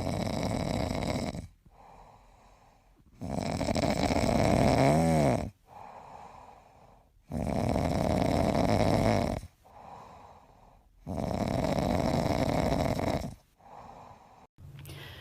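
A sleeping pet snoring in a slow, even rhythm: four loud snores of about two seconds each, with faint breaths in between.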